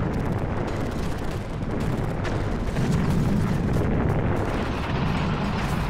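Battlefield noise from artillery fire and explosions: a continuous low rumble with a sharp crack about two seconds in.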